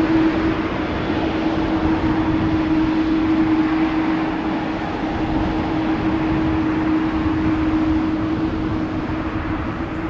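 Jet airliner's engines on landing approach, a steady rumble with a held hum, slowly fading as the aircraft moves away.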